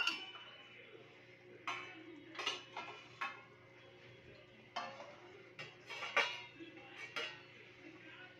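Stainless-steel plate set down on a cooking pot as a steaming lid, ringing briefly on contact, then several light metal clinks and scrapes as the plate is handled and settled.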